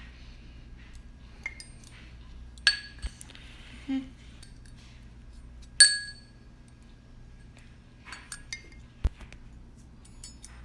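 A metal measuring spoon clinking against a coffee mug while flour is spooned in: several sharp taps, a few of which ring briefly, the loudest about halfway through.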